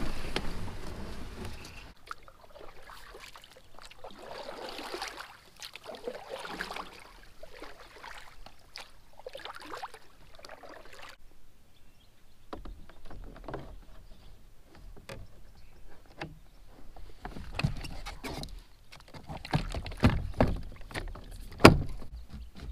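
Fishing kayak on the water: a few swelling swishes of water around the plastic hull, then a run of clicks and knocks as gear is handled in the kayak, the loudest a sharp knock near the end.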